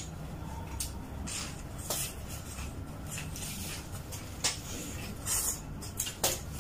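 Two people chewing pork ribs, with scattered wet smacks and mouth clicks over a low steady hum.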